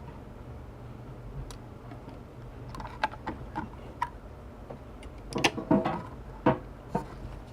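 Scattered small clicks and taps, bunched together about five and a half seconds in, over a steady low hum: small tools and phone parts being handled during a phone repair.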